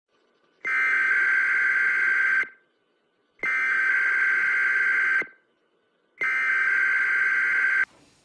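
Three long, steady beeps of a colour-bars test tone, each nearly two seconds long and about a second apart, a slightly buzzy high-pitched tone; the last one cuts off suddenly.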